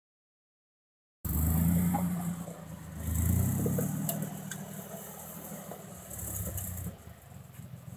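Silence for about a second, then a Jeep engine cuts in running, revving up about two seconds in and settling back to a lower, steady run.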